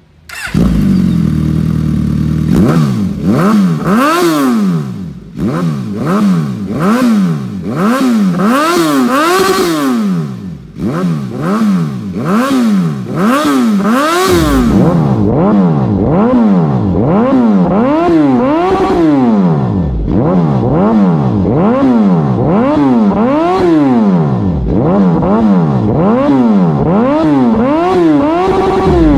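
Suzuki GSX-S1000's inline-four engine, fitted with an aftermarket full exhaust system and Black Knight muffler, idling briefly and then revved in repeated throttle blips, roughly one a second, the pitch rising and falling with each.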